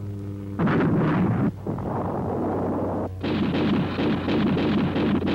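Explosions of ordnance striking a target tank: a sudden loud blast about half a second in, a quieter rumbling stretch, then another loud blast about three seconds in, over a steady low hum.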